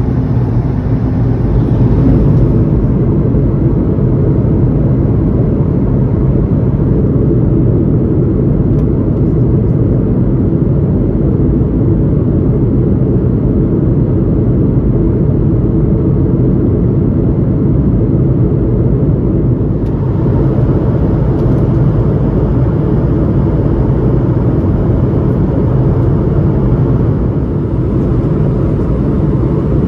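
Steady cabin noise inside an Airbus A220-300 in flight: the Pratt & Whitney PW1500G geared turbofans and the rush of air, heard from a window seat over the wing as a low, even rumble with a faint hum.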